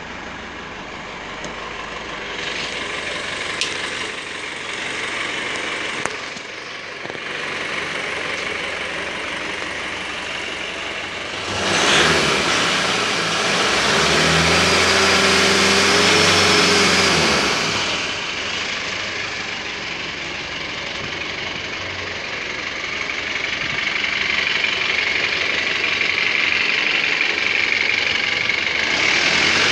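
2014 Foton Tunland's 2.8-litre Cummins four-cylinder turbodiesel idling steadily. About halfway through it is revved once, rising and falling over a few seconds, then it drops back to idle. The engine is being tested and tested good.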